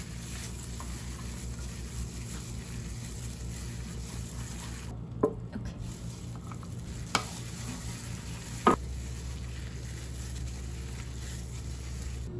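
Plastic-gloved hand squishing and tossing cubed raw tuna in sauce in a stainless steel bowl, a steady wet squelching, with three sharp knocks in the second half.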